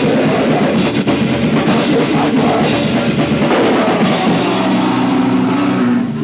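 Thrash/punk band playing live and loud, with distorted electric guitar, bass and a fast-hit drum kit, heard through a camcorder microphone in the crowd.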